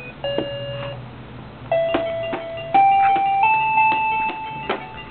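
A child's toy piano played one key at a time: a short note, then three notes climbing step by step, each held for about a second, with light clicks from the keys.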